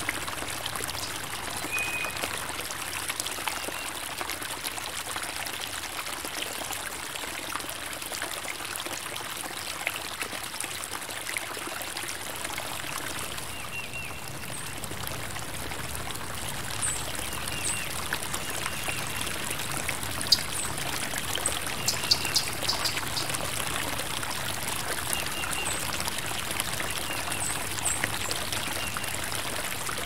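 A stream running steadily with a constant trickling, pouring rush of water. Small birds chirp briefly now and then over it, more often in the second half.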